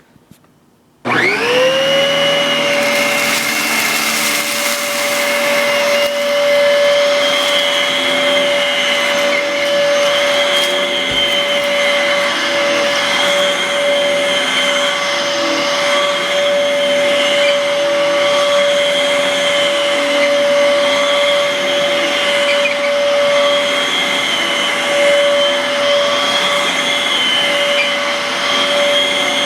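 Bissell heavy duty vacuum cleaner switched on about a second in: its motor spins up with a quickly rising whine, then runs loudly and steadily with a high whine over a rushing hiss while it picks up sprinkled salt and pepper.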